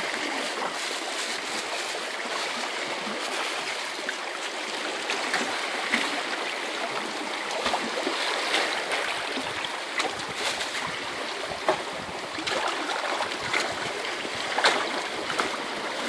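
Shallow seawater lapping and trickling steadily around rocks, with a few small splashes here and there.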